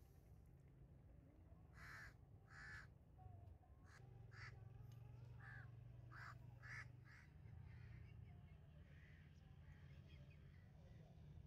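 Crows cawing faintly, a run of short separate calls coming thickest in the middle, over a steady low hum.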